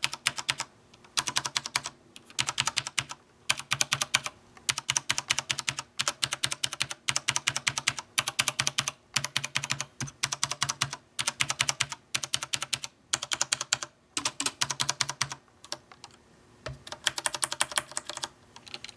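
Keys of a Corsair Strafe RGB mechanical keyboard fitted with Vortex doubleshot PBT keycaps, typed in quick bursts of rapid keystrokes with short pauses between them. The thicker, heavier PBT caps give the clacks a deeper tone than the stock keycaps.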